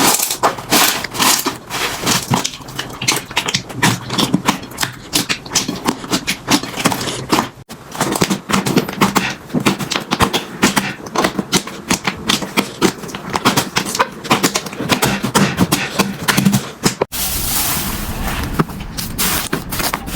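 Slime being squeezed, pressed and poked by hand: a dense run of small clicks, pops and crackles. The sound changes abruptly about 8 s in and again about 17 s in, the last part a smoother, steadier crackle.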